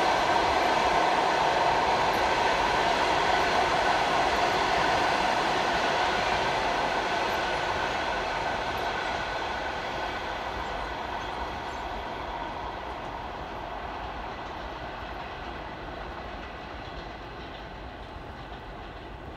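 Passenger coaches of a long train rolling past on the tracks, a steady rumble of wheels with a faint ringing tone, fading away over the second half as the tail of the train recedes.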